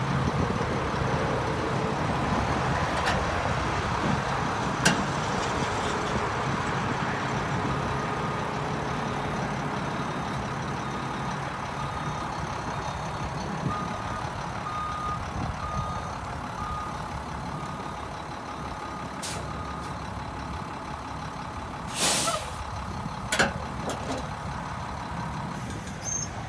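Heavy diesel truck engine idling. A series of steady, evenly spaced high beeps, like a backup alarm, runs through the middle. A short burst of air hiss, like an air brake releasing, comes near the end.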